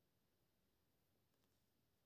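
Near silence: faint room tone in a pause between phrases of speech.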